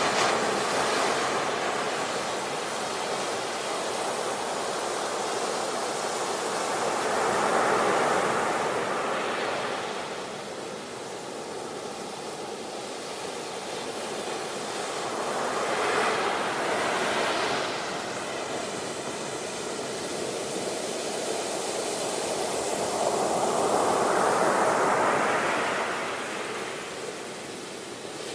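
Ocean waves washing onto a beach, a steady surf hiss that swells and ebbs about every eight seconds, with four wave surges in all.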